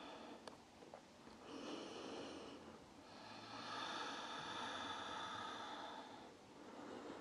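A woman breathing slowly and audibly close to the microphone, two or three long breaths that swell and fade, as she rests just after a plank hold. A couple of small clicks sound about half a second and a second in.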